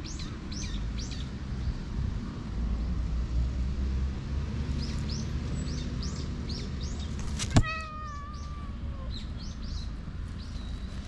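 A black cat meows once, a short call that falls slightly in pitch, about two-thirds of the way through. Small birds chirp now and then over a steady low rumble.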